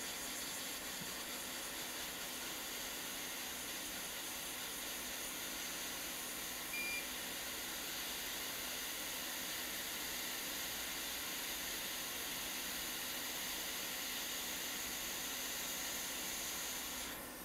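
Hot air rework station blowing a steady hiss onto a flux-covered surface-mount chip to melt its solder, cutting off shortly before the end as the chip comes free. A short single beep about seven seconds in.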